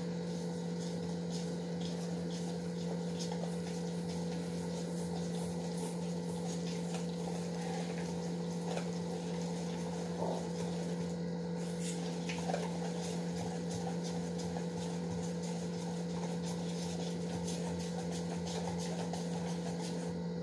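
Wire whisk slowly stirring thick cake batter in a steel bowl: soft scraping with a few light ticks, over a steady low hum.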